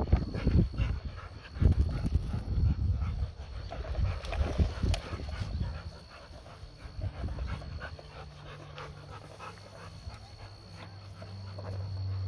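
A dog panting close by after swimming, with rustling and low bumps over the first few seconds. It goes quieter about halfway through.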